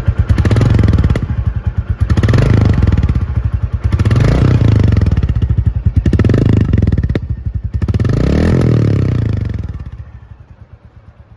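Royal Enfield 350 single-cylinder motorcycle engine with its stock exhaust silencer, revved repeatedly, about five blips roughly two seconds apart, then dropping back to idle near the end.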